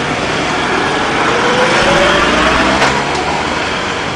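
A motor vehicle passing close by: engine and road noise swell to a peak about two seconds in, with a rising engine note, then ease off.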